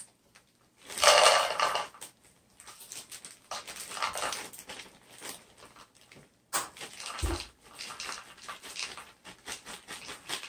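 Plastic bag of chocolate chips crinkling and chips pattering into a plastic measuring cup as many small clicks from about six and a half seconds in, with a dull thump just after. A brief loud sound, under a second long, about a second in.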